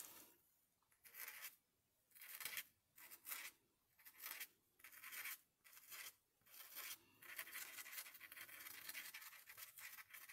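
Faint scratching of a marker pen nib on a card tag, drawing hand-drawn highlights in short strokes about once a second, then more continuous strokes for the last few seconds.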